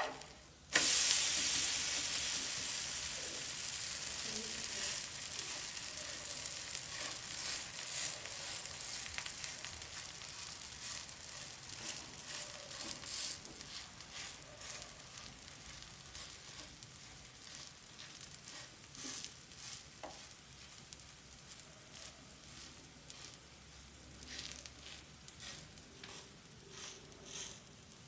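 Cassava dosa sizzling in oil on a hot dosa tawa after being turned over. The sizzle starts suddenly about a second in, is loudest at first, then slowly dies down with scattered crackles.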